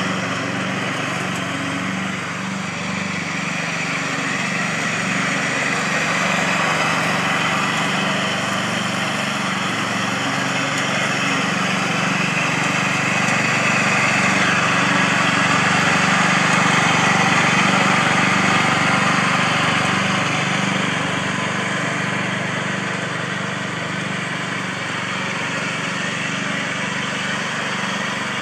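Simplicity front-deck riding mower running steadily under load while cutting grass, its engine and spinning blades making a continuous hum that grows louder in the middle as the mower comes closer, then eases off.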